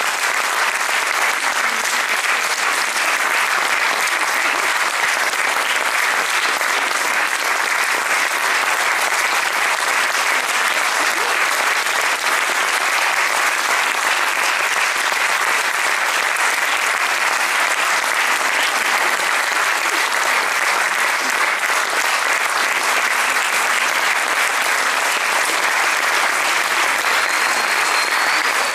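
Theatre audience applauding steadily, a long unbroken round of clapping.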